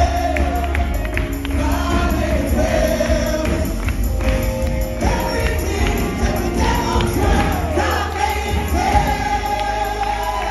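Live gospel worship music: several singers on microphones over drums, bass and keyboard, loud and bass-heavy.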